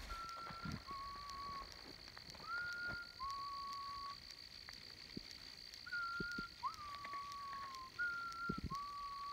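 Someone whistling a two-note call, a short higher note dropping to a longer lower one, repeated four times about every three seconds.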